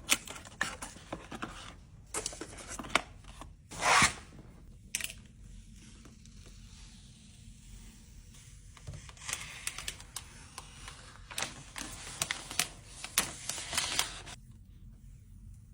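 Packaging being handled during an iMac unboxing: scattered clicks and short rustling swishes, with one louder, longer swish about four seconds in.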